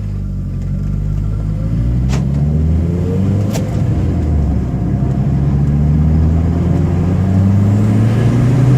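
2002 Volkswagen Jetta's turbocharged 1.8-litre four-cylinder engine pulling under acceleration. Its note climbs steadily, drops about three and a half seconds in at an upshift, then climbs again.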